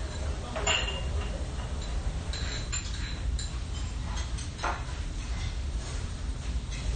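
Metal chopsticks clicking against dishes and the tray a few times, short light clinks scattered through, over a steady low hum.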